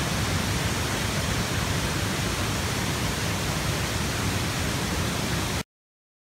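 Floodwater rushing, a steady even noise with a rumbling low end, which stops abruptly near the end.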